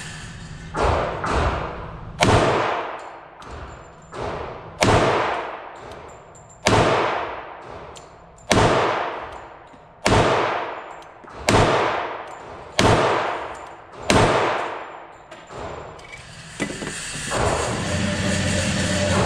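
Springfield Armory 1911 TRP .45 ACP pistol firing about ten single shots, one every one and a half to two seconds, each with a long echo off the walls of an indoor range. Near the end a steady mechanical hum starts: the range's electric target carrier running.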